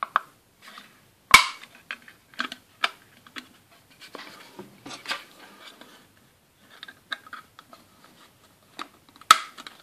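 Hard plastic toy parts clicking and knocking as the doors of a Playmobil wardrobe are pushed into the frame's hinge holes, with soft handling rustle in between. The sharpest clicks come about a second in and near the end.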